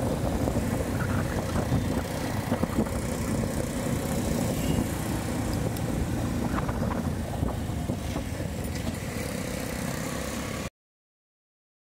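Bajaj CT100 motorcycle's small single-cylinder four-stroke engine running at low road speed, mixed with wind rumble on the microphone. The sound cuts off suddenly near the end.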